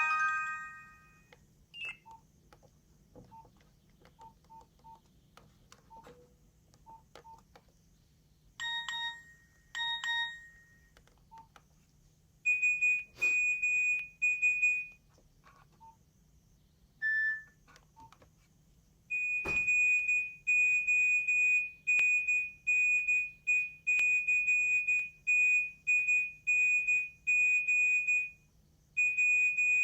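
Nokia 2310 mobile phone's speaker playing its ringtones: a melody ends in the first second, short quiet beeps follow, and then a high, shrill electronic beep repeats about twice a second, alarm-like, through the last third.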